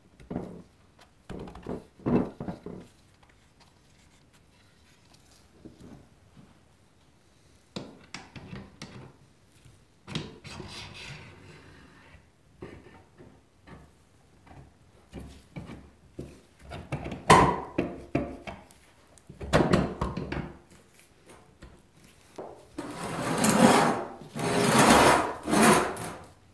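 Honda ATC 90 aluminium crankcase halves handled on a wooden workbench: a paper gasket rustling as it is laid on, and the cases shifted and set down with scattered knocks and rubs. A sharp knock comes about two-thirds of the way in, and a louder stretch of rubbing and rustling near the end.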